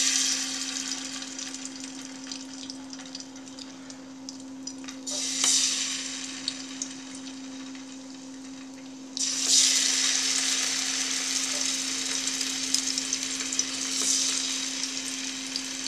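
Masala-coated slices of elephant foot yam sizzling as they shallow-fry in hot oil, the sizzle jumping louder about five seconds in and again at about nine seconds. A steady low hum runs underneath.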